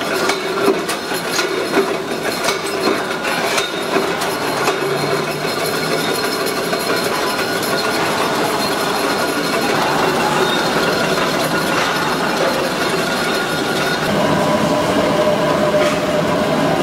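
Metalworking machinery in a pressure-cooker factory, working aluminium cooker bodies. Sharp metal clanks sound over the first few seconds, then a steady mechanical din. A steady whine joins in near the end.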